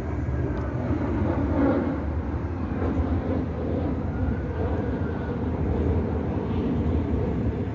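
Steady low rumble of background noise with no distinct events.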